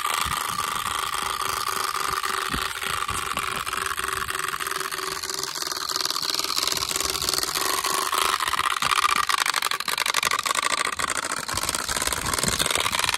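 Bicycle tyres rolling over rough concrete, with a fast, even mechanical ticking over the rolling noise; it grows a little louder past the middle.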